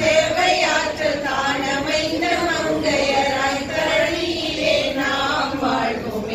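A group of women singing a song together in unison, with long held notes.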